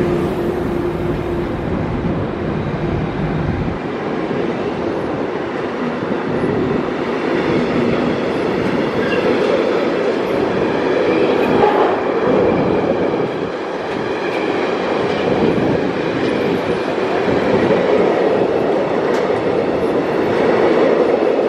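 Freight train passing at speed: a steady rolling rush of steel wheels on rail, with the clatter of wagons carrying truck trailers. A steady electric-locomotive tone is heard for about the first second and a half as the ÖBB electric locomotives go by.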